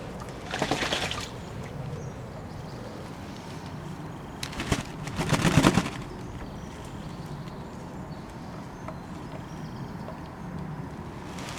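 Fantail doves splashing in a bowl of bathing water: two short bouts of wing-beating and splashing about four seconds apart, the second louder and longer.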